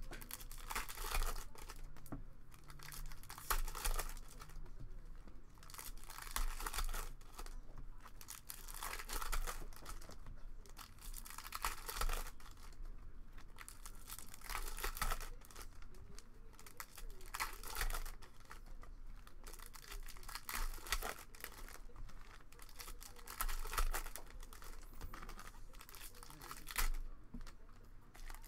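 Foil wrapper of a Bowman baseball card pack being torn open and crinkled by hand, with cards rustling and slid against each other as they are sorted; irregular crackling and rustling throughout.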